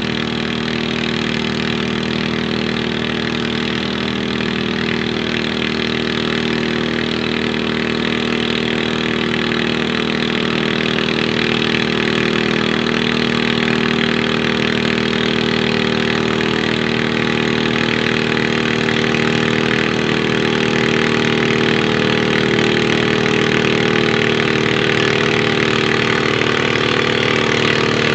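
Garden tractor engine running steadily under load as it pulls the weight sled down a pulling track, growing slowly louder as it comes closer.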